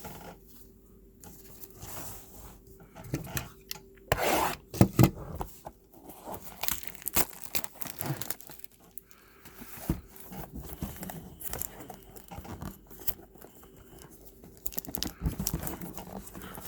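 Foil wrapper of a Topps trading card pack being torn open and crinkled, a run of irregular crackles and rustles, loudest about four to five seconds in.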